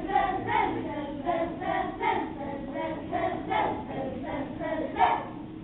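A group of children singing together in short, rhythmic syllables, about two a second, with a louder accented note about five seconds in.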